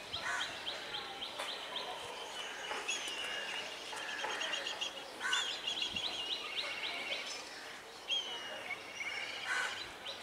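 Birds calling: repeated rapid trills of high chirps and short whistled notes, with no audible train rumble underneath.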